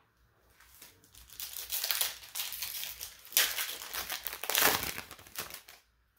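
Foil wrapper of a Chaotic trading card booster pack crinkling as it is handled and torn open, starting about a second in and dying away just before the end.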